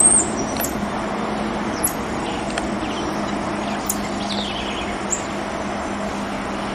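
Common marmosets giving a few short, very high-pitched chirps over a steady background of noise with a low hum.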